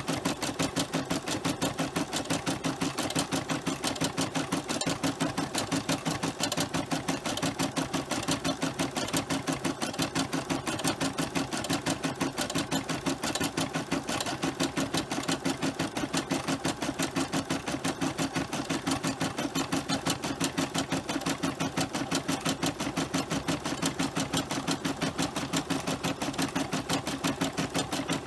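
Home embroidery machine stitching out a cross-stitch design on felt, its needle running at a fast, even clatter without a break.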